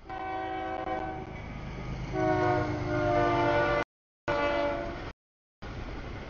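CSX freight locomotive sounding its multi-chime air horn at a grade crossing, over the low rumble of the passing stack train: a blast of about a second, a longer and louder one, then a short one. The sound cuts out abruptly several times near the end.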